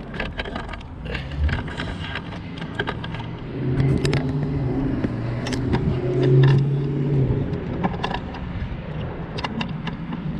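A vehicle engine running at low speed, its note growing stronger and steadier for a few seconds in the middle, with scattered clicks and rattles over it.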